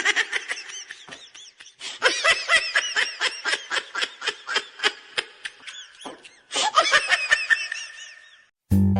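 High-pitched laughter in rapid repeated bursts, about four to five a second, breaking off briefly about six seconds in before starting again.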